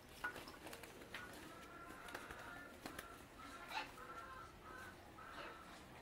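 Faint cooing and calls of domestic rock pigeons, with a few sharp wing flaps and taps mixed in.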